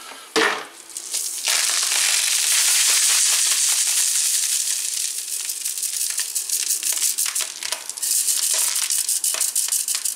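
Homemade lead shotgun pellets shaken around in a round stainless wire-mesh sieve: a dense, hissing rattle of small shot rolling and clicking over the mesh, screening out oblong, imperfect pellets. A single knock comes just before the rattle starts.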